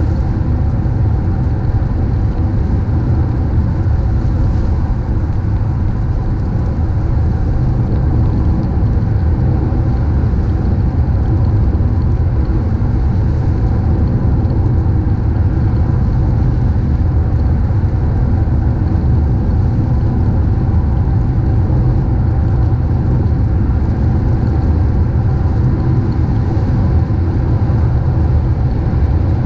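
A car driving at steady speed: a continuous low road-and-engine rumble with an even hiss above it.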